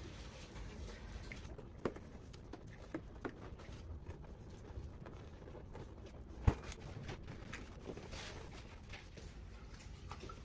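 Latex balloons being handled while a balloon neck is tied to a water-filled weight balloon: faint rubbing with scattered small clicks and one sharp knock about two-thirds through.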